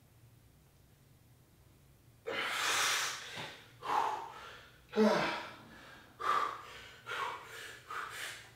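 A man breathing out hard in six forceful puffs, the first one long and the rest shorter at about one a second: heavy breathing from exertion while straining through the last reps of a shoulder set taken to failure.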